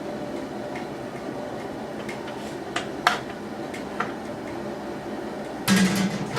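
Crawfish-boil pot of water at a steady rolling boil, with a few sharp metal clinks of the strainer basket against the pot and a louder metal clatter near the end.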